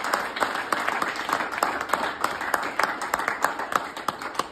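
A room full of people applauding, many hands clapping together, thinning out near the end.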